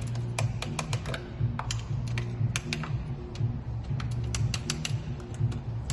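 Background music with a low repeating bass line, over irregular sharp clicks, several a second.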